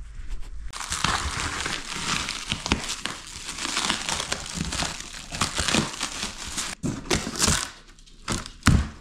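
Black plastic stretch wrap crinkling and tearing as it is cut with scissors and pulled off a cardboard box, with a few sharp clicks near the end.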